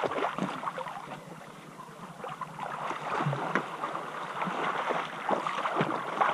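Swimming-pool water lapping and sloshing against the pool edge right at the microphone, with small irregular splashes as a swimmer moves through the water.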